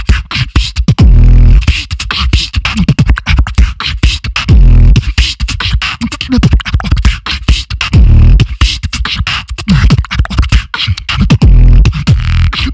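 Solo beatboxing into a handheld microphone with both hands cupped around it. Fast, dense clicks and snares are broken by a deep bass note held about half a second, four times at an even pace.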